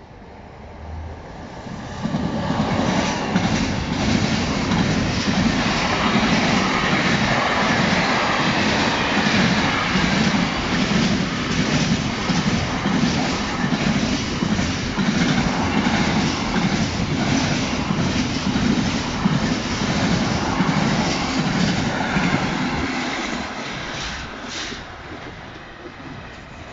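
Intermodal freight train of container wagons passing close at speed, its wheels clattering in a steady rhythm. The noise comes up suddenly about two seconds in and dies away over the last few seconds.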